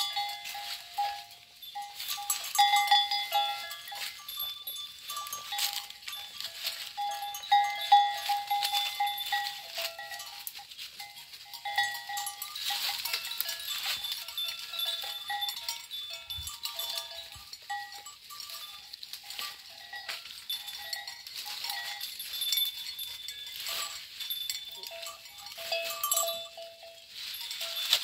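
Goats browsing on cut leafy branches: leaves and twigs rustling and crackling as they pull and chew. Short, clear ringing tones of steady pitch repeat throughout.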